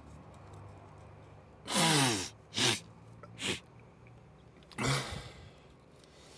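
A man snorting and sniffing hard through his nose, four times in all: the first is the longest and loudest, with his voice dropping in pitch, then two short sharp sniffs and a last voiced one.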